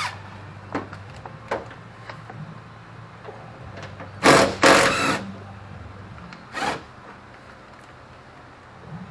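Hand work on a car door's trim: a few sharp clicks, then two short, loud scraping or ripping noises about four seconds in and another near seven seconds, over a steady low hum.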